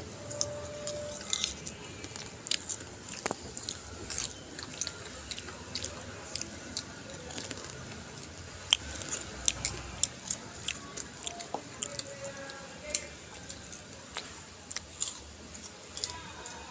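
Popcorn being chewed, with irregular crisp crunches, and pieces rustling as a hand takes them from the glass bowl.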